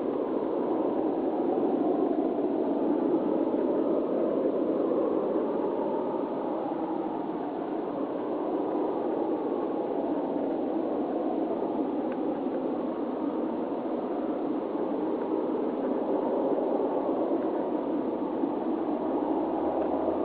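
A steady roaring drone that wavers slowly in pitch and never stops or breaks; its source is unidentified.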